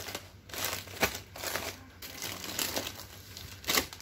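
Plastic-wrapped packs of disposable face masks crinkling and rustling as they are picked up and moved around by hand, with a few sharper crackles about a second in and near the end.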